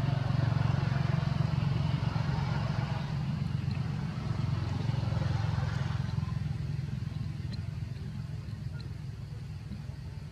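A motor engine running with a steady low hum, loudest over the first few seconds and then slowly fading away.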